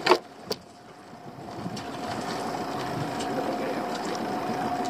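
A wire-and-netting lobster pot knocks down onto the boat's gunwale, a loud knock and a lighter one half a second later. Then a steady motor hum with a thin, even whine sets in and grows a little louder.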